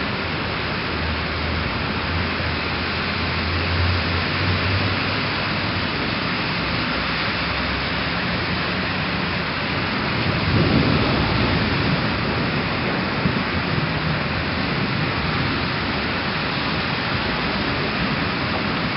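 Heavy rain pouring steadily, with low rumbles beneath it; the strongest rumble swells up about ten seconds in and fades over a couple of seconds.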